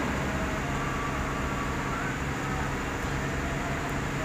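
Heavy diesel engines of a crawler asphalt finisher and a self-loader truck running steadily during loading, a low, even engine hum.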